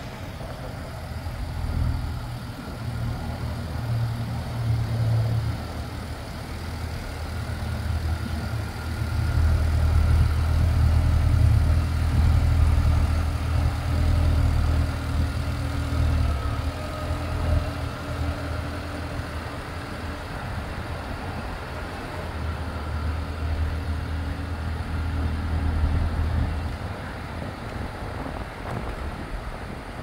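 A Kawasaki Ridge side-by-side's engine idling: a steady low rumble that swells and eases a little.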